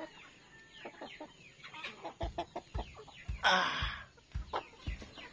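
A flock of chickens clucking over and over, in many short, falling calls. About three and a half seconds in comes a short, loud burst of noisy, rustling sound, the loudest thing heard, along with a few low thumps.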